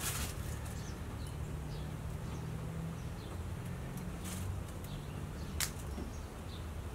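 Faint rustling and light handling noises of hands working inside a car's trunk to connect a wiring harness, over a steady low hum, with one sharper click about five and a half seconds in.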